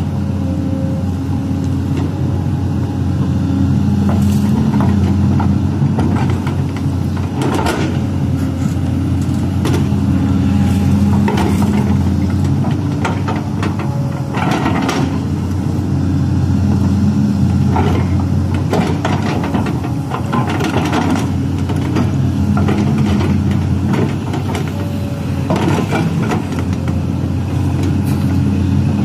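LiuGong crawler excavator's diesel engine running steadily, its note swelling and easing every few seconds as the hydraulics work the boom and bucket. Now and then come short clanks and scrapes from the bucket digging into the soil.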